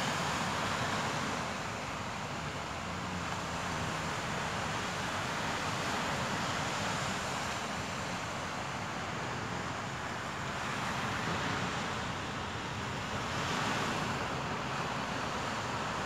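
Sea waves breaking and washing up a sandy beach: a steady rush that swells and eases every few seconds.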